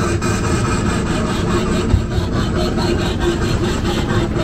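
Small ride train rolling along its track, a steady rumbling, rubbing rattle of wheels on rails and the car's body, with faint repeated clicks.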